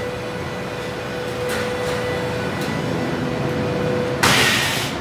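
Steady whir of a commercial kitchen's exhaust hood and lit gas grill burners, with a faint steady tone running through it. A short, loud hiss breaks in about four seconds in.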